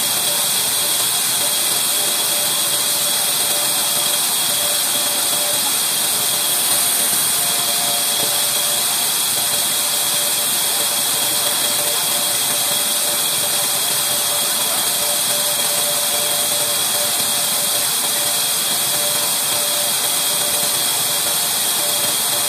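Large sawmill band saw running steadily with no wood in the cut: a constant mechanical hum and hiss with a faint steady whine.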